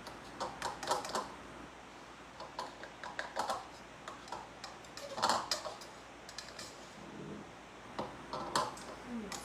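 Irregular light clicks and taps of kitchen utensils against dishes, coming in small clusters.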